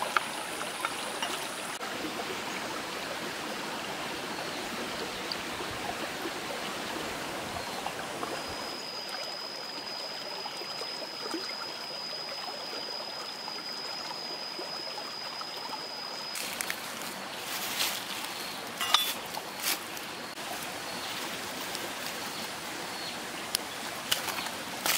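Shallow stream running steadily over rocks. A few sharp knocks come about two-thirds of the way through, and a thin, steady high tone is heard through the middle.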